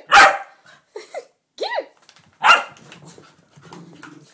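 Small terrier-type dogs play-fighting: four sharp barks and yips in the first two and a half seconds, then a low growl near the end.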